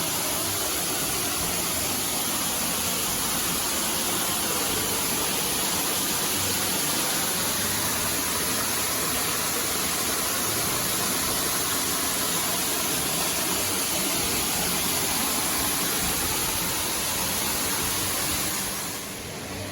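Schoolhouse Falls waterfall pouring: a steady rush of falling water that drops a little quieter about a second before the end.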